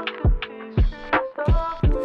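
Background music with a steady beat of deep kick-drum thumps under held and gliding melodic notes.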